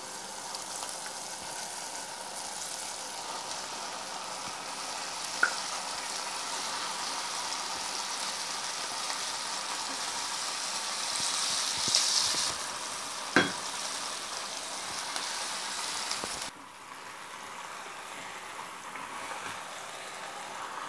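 Onion-and-spice masala frying in oil, a steady sizzle as pieces of raw duck meat are added to the pan. The sizzle swells about twelve seconds in, two sharp clinks come about five and thirteen seconds in, and the hiss drops off abruptly a few seconds before the end.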